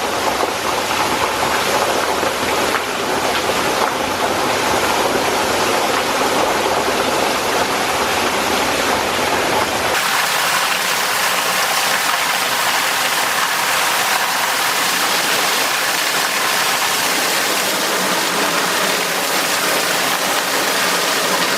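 Small waterfall pouring and splashing, a loud steady rush of water. About halfway through the sound abruptly turns brighter and thinner, with less low rumble.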